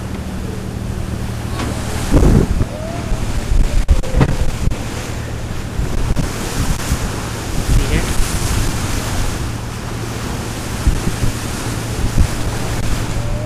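Wind buffeting the microphone on a moving boat, over the steady low hum of the sportfishing boat's engine and the wash of sea water.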